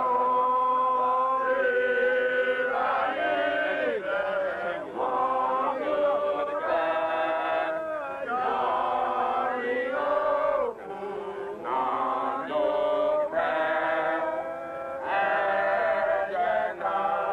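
Worshippers chanting together in a sung, melodic line, phrase after phrase with short breaks between.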